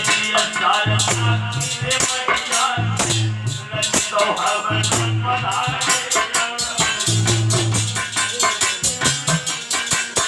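Aalha folk-ballad music: a fast, even jingling rhythm over drums, with a low melodic phrase that repeats about every two seconds.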